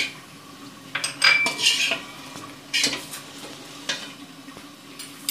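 Steel slotted spoon scraping and clanking against a metal wok as a vegetable and chicken filling is stirred, in several separate strokes. The loudest, about a second in, rings briefly.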